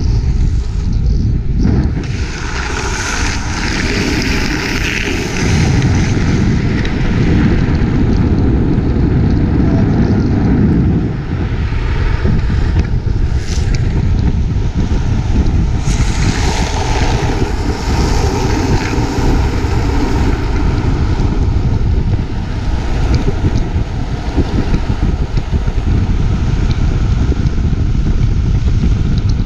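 Wind buffeting the microphone over a steady rumble of wheels rolling fast on asphalt, swelling and easing a few times.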